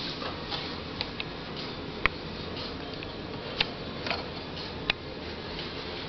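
A handful of irregular sharp clicks over a steady hiss, the loudest about two seconds in.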